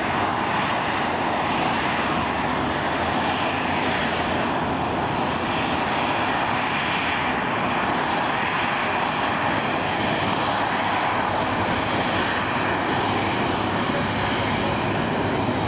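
Boeing 737-800's CFM56-7B turbofan engines: steady jet noise from the airliner flying past in a display turn, holding an even level throughout.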